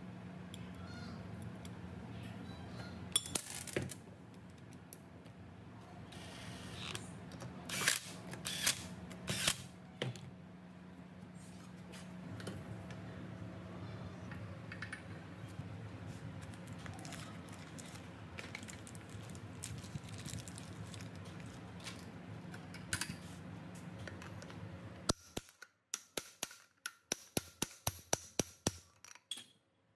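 A steady low machine hum with occasional sharp metallic clinks. About 25 seconds in the hum cuts off and a quick series of sharp metallic taps follows, about three a second.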